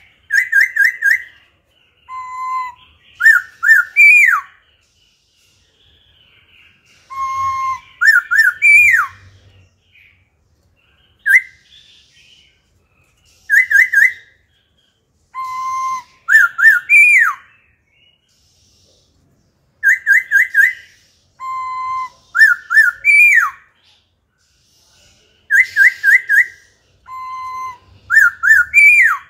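Caged black-throated laughingthrush singing loud, clear whistled phrases. Each phrase is a quick run of three or four notes, a lower held note and a fast downward slur. The same sequence repeats about every six seconds with short pauses between.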